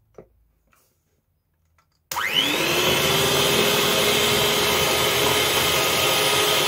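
Electric hand mixer switched on about two seconds in, its motor whine rising as it spins up, then running steadily as its beaters whip egg whites with sugar.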